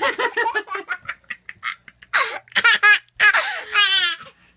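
Small child laughing in a fit of giggles: a quick run of short laugh pulses, then several louder, high-pitched bursts of laughter from about two seconds in.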